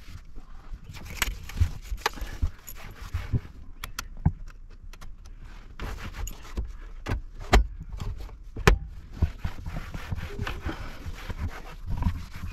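Rustling and scraping as objects are handled, with scattered sharp clicks and knocks, two of them loud, about halfway through and two-thirds of the way through.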